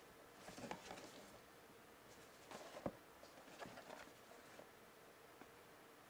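Faint handling noises of a small cardboard webcam box being turned over in the hands: light rustles and taps, with one sharper tap about three seconds in.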